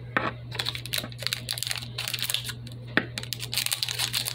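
Small scissors snipping into a plastic wrapper, with crinkling and a rapid, uneven run of clicks and crackles.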